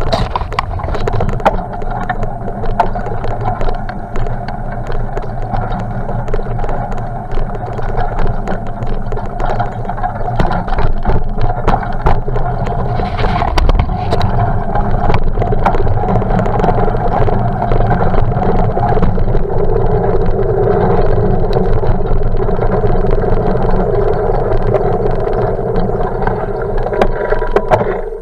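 Bicycle riding over a rough dirt path, heard from a camera in a housing fixed to the bike: a steady rumble of tyres and wind with many small rattles and knocks over bumps. A steadier hum joins about two-thirds of the way through.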